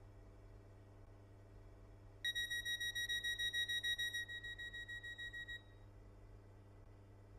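Class 319 electric train's door-closing warning: rapid high beeps, about five a second, lasting about three seconds and dropping softer for the last second or so. A steady low hum runs underneath.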